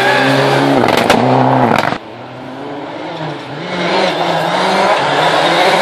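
Rally cars at speed on a gravel stage. A Mitsubishi Lancer Evolution's turbocharged four-cylinder engine passes close at full throttle, shifting pitch, with a few sharp cracks about a second in. It cuts off abruptly about two seconds in, and then a second rally car's engine approaches, rising and falling through the gears and growing louder.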